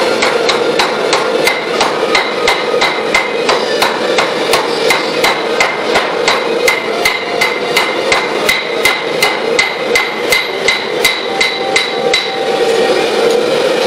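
Hand hammer forging red-hot steel on a chain-wrapped anvil: a steady run of ringing strikes, about three a second, that stops about twelve seconds in. A steady roar runs underneath throughout.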